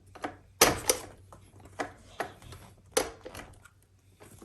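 Hand tool clicking and knocking against metal while a nut or bolt on a children's bicycle is tightened: a handful of sharp, irregular clicks, the loudest a little over half a second in.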